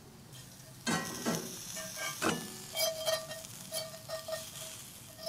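A metal fork scraping and prying against a hot cast iron skillet as pan-fried catfish fillets are lifted out, the fish sticking a little to the pan. A few scrapes come in the first half, then light sizzling and crackling from the hot oil.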